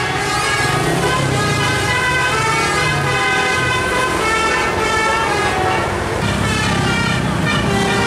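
Tour bus's Basuri telolet musical horn from a DAV module, playing a melody of steady tones that step from pitch to pitch, over the low rumble of engines and traffic.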